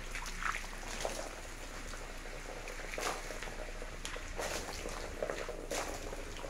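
Water poured from a plastic bucket splashing and running down a cement sculpture in uneven splashes. The fresh cement is being wetted so that it cures hard.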